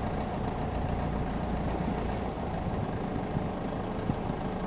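Boat engine running steadily at idle, with an even hiss over it.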